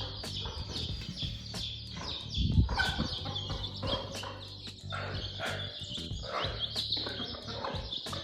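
Chickens clucking and chirping as they are fed breadcrumbs, with many short high calls throughout.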